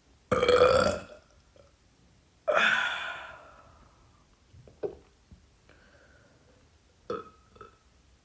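A woman burping twice, each burp loud and sudden; the second, about two seconds after the first, trails off breathily. A few short, softer sounds follow.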